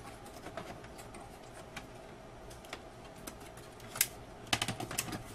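Scattered light clicks and taps of a Commodore LCD's circuit boards and plastic case being handled as a board is lifted and shifted, with a sharper click about four seconds in and a quick run of clicks soon after, over a faint steady hum.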